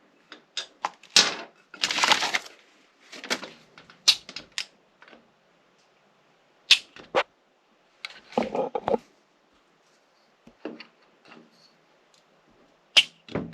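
Hand rivet nut tool being set up, its parts shifted by hand: scattered sharp metal clicks and clinks with a few brief rattles, unevenly spaced with quiet gaps.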